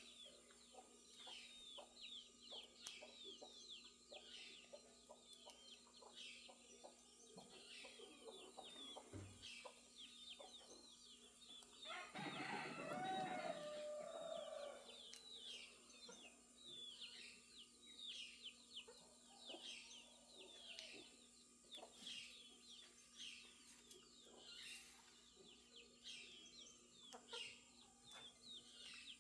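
A faint rooster crowing once, a drawn-out call starting about twelve seconds in and lasting some two and a half seconds. Many small birds chirp continuously underneath in quick, falling chirps.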